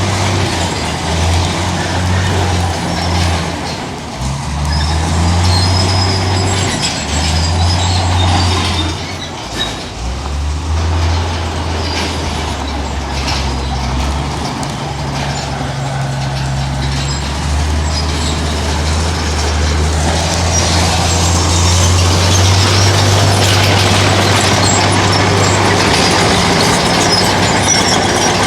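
Heavy diesel engines of earthmoving machinery working, the engine note stepping up and down as they rev under changing load. The engine sound settles steadier and a little louder about two-thirds of the way through.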